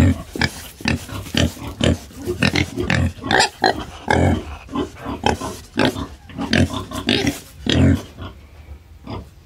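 Collared peccary (javelina) grunting: a quick, irregular series of short, rough grunts, about two a second.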